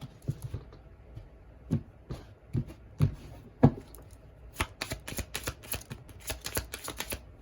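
A tarot deck shuffled by hand: scattered soft taps and slaps of the cards, then a quick run of rapid card clicks in the second half.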